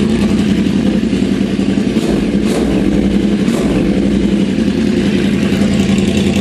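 2009 Yamaha R1's crossplane 'big bang' inline-four idling steadily through straight-piped Akrapovic exhaust with the catalytic converter removed.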